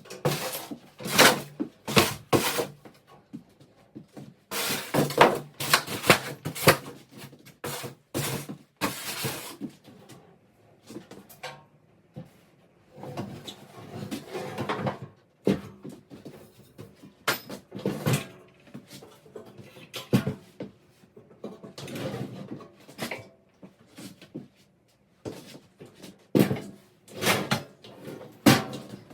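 Irregular knocks, clunks and scraping as dust extractor parts are handled and fitted together by hand. There are clusters of sharp knocks, with quieter pauses between them.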